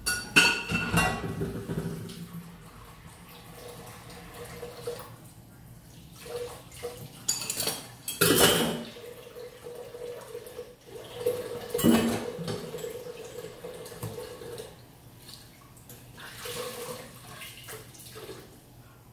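Kitchen tap water running into a sink in bursts, with splashing and a pot clattering as things are rinsed. The loudest bursts come about a second in, around eight seconds in and around twelve seconds in.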